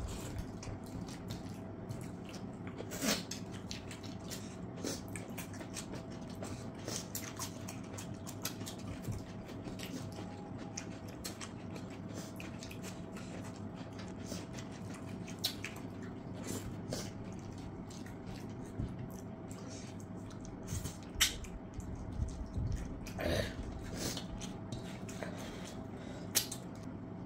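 Eating by hand: fingers squishing and mixing rice with chicken curry gravy on stainless-steel plates, with chewing and many small wet clicks and scrapes. A few louder clicks stand out, and a faint steady hum runs underneath.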